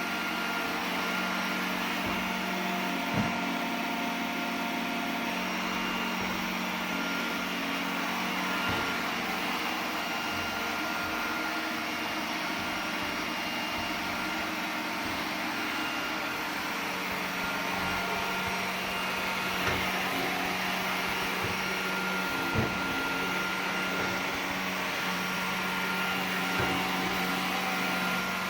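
iRobot Roomba 980 robot vacuum running with a steady whir, with a few brief knocks along the way.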